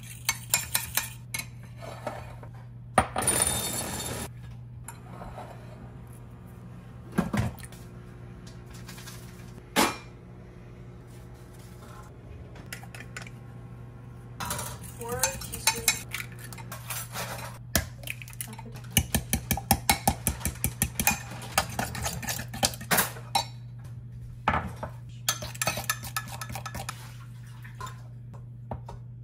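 A metal fork and spoon stirring and clinking against a glass measuring cup, with scattered taps and scrapes. About two-thirds of the way through comes a fast run of clinks as the mixture is whisked. A steady low hum runs underneath.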